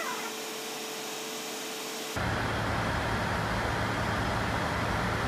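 DD16 diesel locomotive's engine running as it rolls slowly in; a fainter steady hum at first gives way suddenly, about two seconds in, to a louder, steady low engine drone.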